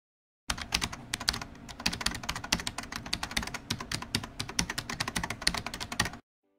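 Rapid computer-keyboard typing clicks, used as a sound effect. They start about half a second in and cut off suddenly near the end.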